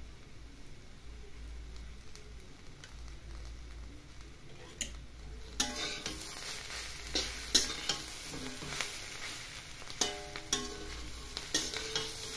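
Metal spatula stirring and scraping upma through ghee in a metal kadhai over high heat: a frying sizzle with sharp clinks and scrapes of the spatula against the pan. The sizzling and clinking start about halfway in; before that it is quiet.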